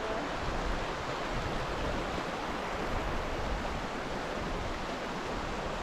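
Flowing creek water rushing steadily, an even noise with no breaks.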